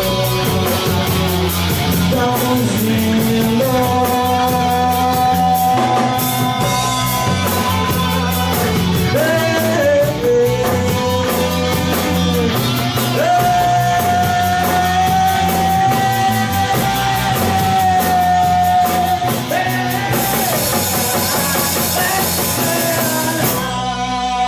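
Rock band playing an instrumental passage: long held, bending lead notes over bass and a steady drumbeat. About four seconds before the end the beat gives way to a sustained cymbal wash, and the music dies away at the close.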